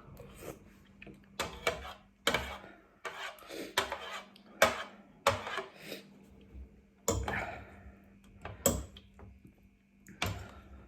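Eating utensils knocking and scraping against a bowl while gathering up spicy noodles and rice cakes: about a dozen sharp, irregular clinks, some followed by a short scrape.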